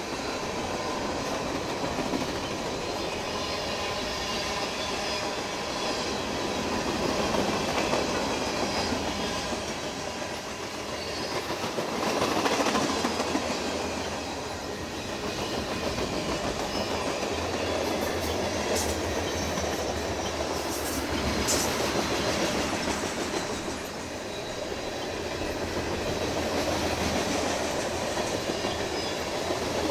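CN freight train rolling past, its steel wheels clicking over the rail joints. The noise swells and eases as the cars go by.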